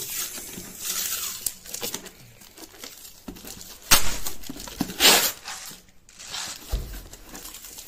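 Clear plastic packing tape being peeled and ripped off a cardboard box in several rasping pulls, the two loudest rips coming about four and five seconds in.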